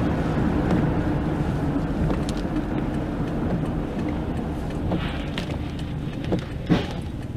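Tyre and road noise of a car on a wet motorway, heard from inside the cabin, slowly growing quieter as the car brakes from highway speed. A few sharp knocks from the windscreen wipers sweeping come near the end.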